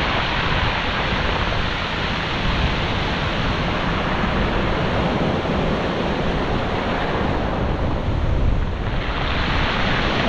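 Surf breaking and washing up over a shingle beach at close range, a steady rushing wash that eases briefly about eight seconds in and then builds again as the next wave comes in.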